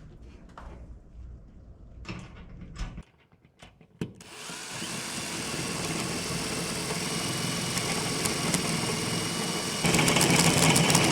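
A few light knocks of handling, then an electric drill running steadily from about four seconds in, getting louder near the end as it bears down, as when driving a screw to mount a flag on the shop wall.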